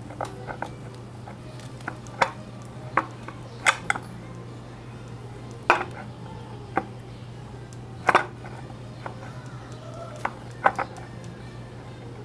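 Irregular sharp metallic clinks, about a dozen, as metal tools and engine parts are handled and set down on a work surface, over a steady low hum.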